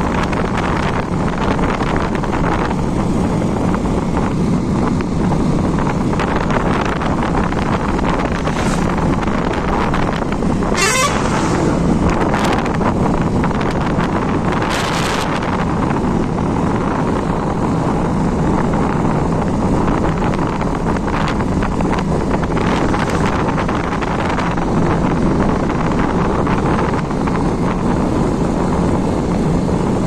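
Motorcycle running steadily at road speed, heard from the rider's seat with wind noise on the microphone. Two brief higher-pitched sounds stand out about eleven and fifteen seconds in.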